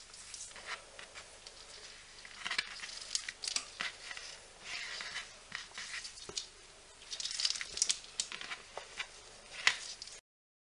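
Hemp cord rustling and rasping against fingers in short, irregular bursts as square knots are worked and pulled tight, with a few light clicks; the sound cuts off near the end.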